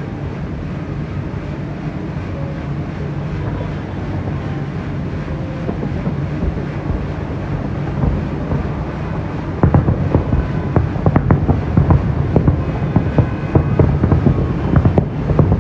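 Wind buffeting the microphone over a steady low rumble. About ten seconds in, a rapid, irregular run of sharp firework bangs and crackles starts.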